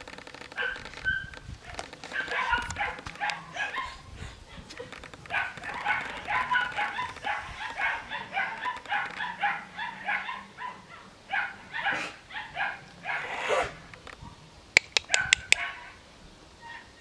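Rough collies barking and yipping in quick runs of short calls, with a few sharp clicks near the end.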